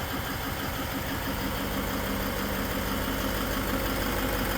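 Toyota Land Cruiser 200's V8 turbodiesel idling steadily, carrying an extraneous noise that the owner is trying to track down. A steady hum comes in about a second in and stays.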